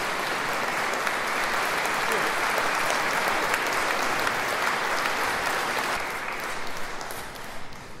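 Audience applauding, steady at first and dying away over the last two seconds.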